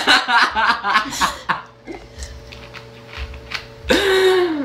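A person's voice for about the first second and a half, then about four seconds in, a loud burp: one belch, falling in pitch, lasting under a second.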